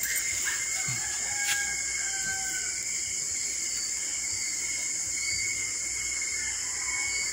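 Steady high-pitched drone of night insects over a low rush of river water, with a few faint short calls about one to two and a half seconds in and a single sharp knock about a second and a half in.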